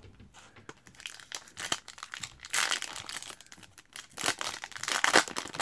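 Foil wrapper of an Upper Deck MVP hockey card pack crinkling and tearing as it is handled and ripped open, in irregular crackly bursts that grow louder about halfway through and again near the end.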